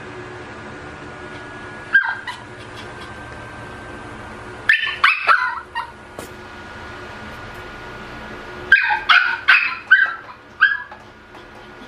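Pomeranian puppy barking in short, high yips: one about two seconds in, a quick run of about four a few seconds later, and a burst of five or six near the end.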